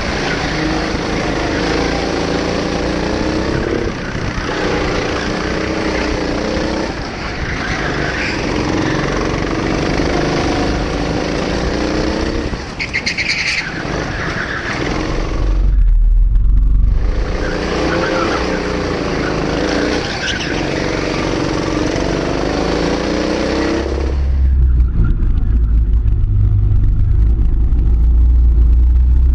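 Go-kart motor at speed, its pitch rising and falling over and over as the kart speeds up and slows through the turns. A brief high squeal comes about halfway through, and a heavy low rumble takes over in the last five seconds.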